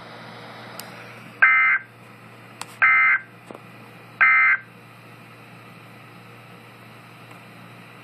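NOAA Weather Radio end-of-message SAME data tones, three short buzzing digital bursts about a second apart, heard through a weather radio's speaker over steady static hiss. They signal the end of the alert broadcast.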